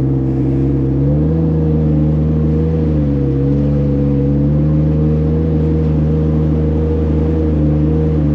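Boat motor running steadily under way, its pitch shifting slightly about a second in and again around three seconds in. It is running normally on a test run after repairs.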